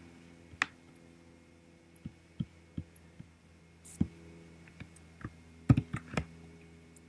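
About a dozen scattered clicks from a laptop's keys and pointer buttons, the loudest a quick group of three about six seconds in, over a faint steady hum.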